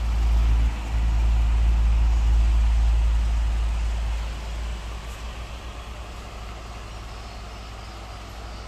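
Running electric wall fan blowing its airflow onto the microphone, heard as a loud, gusty low rumble for about the first four seconds. The rumble then eases off, leaving the quieter, steady whir of the fan.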